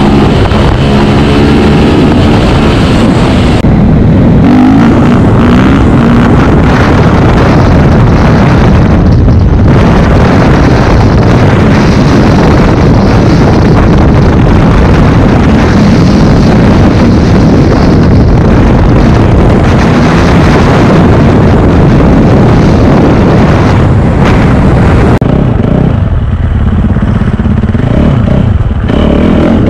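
Single-cylinder four-stroke motocross bike engines, a Yamaha YZ450F and a KTM 350 SX-F, running hard at speed, heard close from on the bike. The engine note rises and falls with the throttle, with short lifts about four and nine seconds in, and a stretch of easing off near the end before it picks up again.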